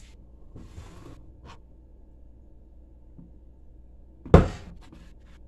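Handling a plastic gelatin mold while the set gelatin is loosened from it: a brief soft rubbing about a second in, then a single sharp knock of the plastic mold a little past four seconds in, followed by a few faint clicks.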